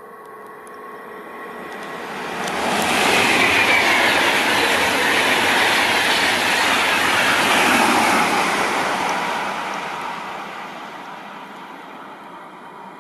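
Passenger train of IC coaches with a DB Class 101 electric locomotive passing at speed. The wheel and rail noise swells over about two seconds, holds loud for several seconds, then fades away.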